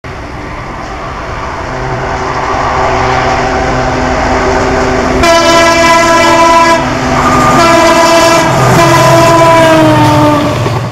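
ALCO WDG 3A diesel locomotive approaching at speed, its engine sound growing steadily louder. It then sounds its multi-tone horn: a blast about five seconds in, then a longer one whose pitch drops as the locomotive passes.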